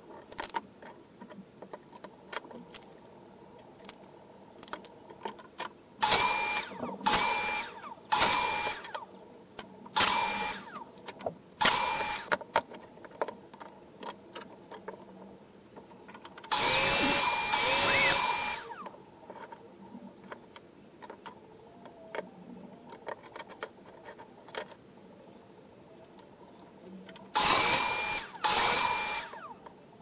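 Cordless power drill running in about eight short bursts, each with a steady motor whine, the longest about two seconds just past the middle. Between the bursts come small clicks and knocks of wood and tools being handled on the bench.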